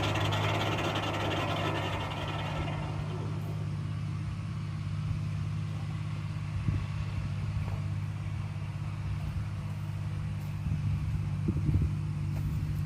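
Kubota tractor engine running steadily, driving a Foley-Belsaw circular sawmill; a higher, rushing saw noise dies away about two and a half seconds in, leaving the engine's low drone.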